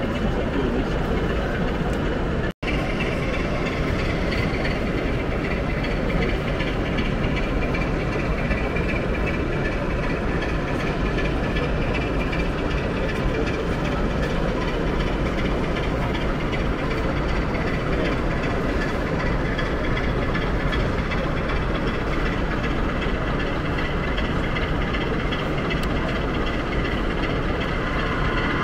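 Steady engine sound of a sound-fitted model diesel locomotive over the continuous background noise of an exhibition hall.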